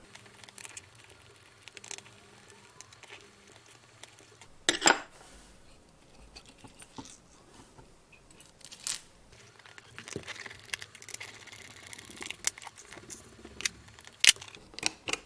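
Small clicks, taps and scrapes of a fine screwdriver, tiny screws and thin metal strips being handled on the plastic underside of an H0 model railway wagon as it is taken apart. Scattered sharp clicks, one louder about a third of the way through and several close together near the end.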